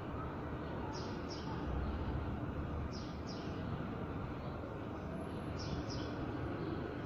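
A bird calls three times, each call a pair of short, high, falling notes, over a steady background hum of outdoor noise.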